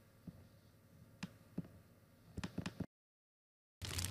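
Quiet background with a few faint, soft clicks, then a moment of dead silence. Just before the end a loud crackling hiss starts suddenly.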